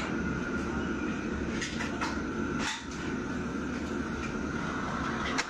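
Steady noise of commercial wok burners and the kitchen extraction hood running, with a few sharp clanks of wok and utensils.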